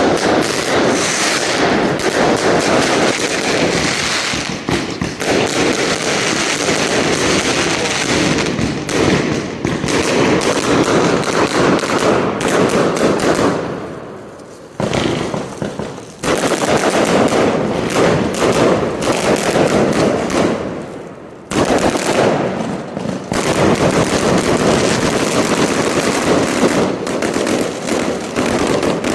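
Fireworks display: a loud, dense barrage of rapid bangs and crackles in quick succession, easing off briefly about 14 and 21 seconds in before building up again.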